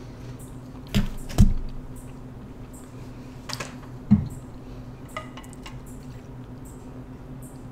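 Close-miked eating: mouth noises from chewing pizza, with two loud sharp crunchy clicks about a second in, another click before the fourth second, a soft low thump just after, and a few small ticks a second later, over a steady low hum.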